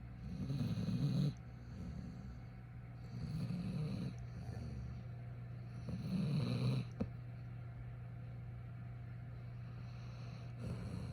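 Golden retriever snoring in its sleep: three rumbling snores about three seconds apart. The snoring stops after about seven seconds with a small click.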